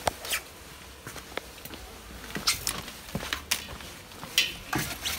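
Footsteps on a hard garage floor with scattered light knocks and clicks, irregular and fairly quiet.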